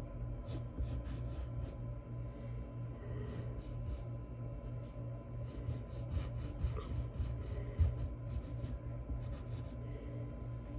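Graphite pencil scratching on paper in short repeated strokes, going over and darkening the outline of a drawn eye.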